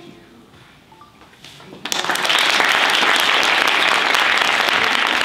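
After a quiet moment, an audience breaks into applause about two seconds in and keeps clapping steadily.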